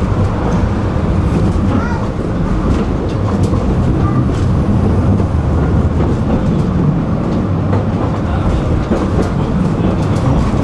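Tram running along street track, heard from inside the passenger car: a steady low rumble of wheels and running gear, with scattered clicks and knocks from the rails.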